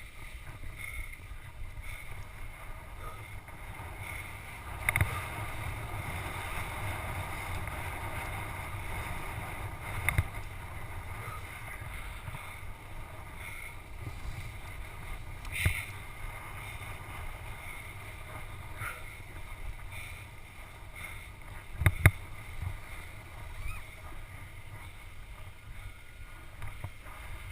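Skiing heard through a helmet-mounted GoPro Hero HD: a steady rush of skis on snow and wind, with the camera mount chattering on the helmet. Sharp knocks come four times, the loudest a few seconds before the end.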